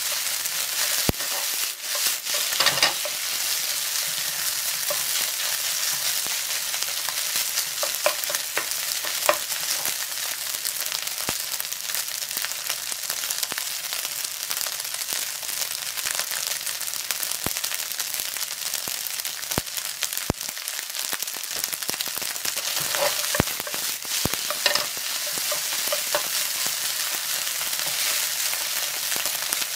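Fried rice with sausage and egg sizzling in oil in a frying pan, stirred and turned with a wooden spatula that clicks and scrapes against the pan now and then. The rice is being fried dry so the grains come apart.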